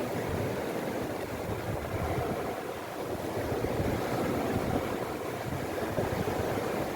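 Sea surf washing steadily: an even, rushing noise with no distinct breaking crashes.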